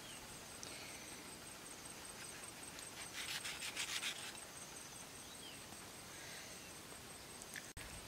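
Large knife blade shaving the skin off a green mango, heard as a quick run of crisp scrapes about three seconds in, over a faint background hiss.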